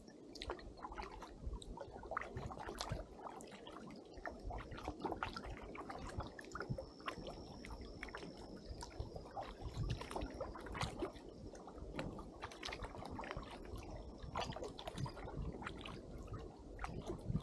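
Paddle strokes in calm water, with irregular splashes, drips and gurgles as the blade dips and lifts and water runs off it.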